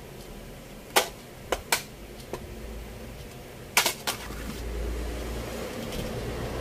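A few sharp clicks and clatters of pliers and a thin metal shield being handled and set down on a hard bench, with a double click a little before the end. A low steady rumble comes up in the second half.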